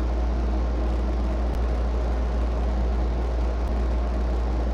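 Steady low hum with an even hiss over it, unchanging throughout: constant background noise in the room recording.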